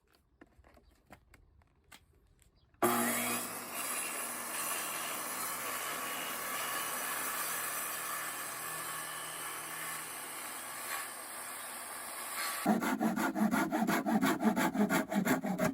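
Sawing: about three seconds in, a steady rasping cut starts and runs for about ten seconds, then changes near the end to quick, evenly repeated strokes.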